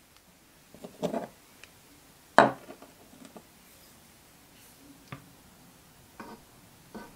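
Small metal engine castings handled on a wooden bench: a brief scrape about a second in, then a sharp knock as a casting is set down, followed by a few light clicks and taps.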